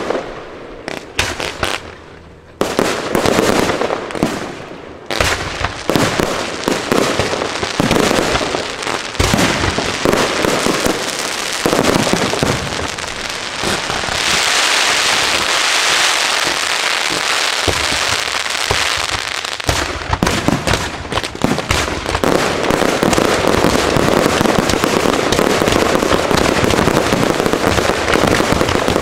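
Firework shells bursting overhead in quick succession. A steady rushing hiss from ground fountains runs for several seconds in the middle, and the bangs and crackle then thicken into a near-continuous barrage toward the end.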